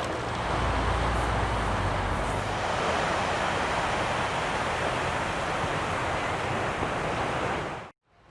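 Pacific surf washing onto the beach with wind rumbling on the microphone, heaviest in the first couple of seconds. The sound cuts off abruptly near the end.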